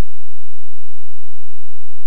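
Near silence: an empty audio track with only a very faint even hiss and a faint steady high tone.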